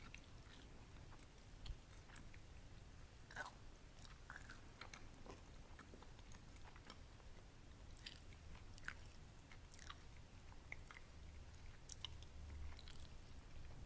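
Close-up chewing of a pan-fried egg wrap with a crispy outside, with soft, scattered crunches and faint mouth sounds.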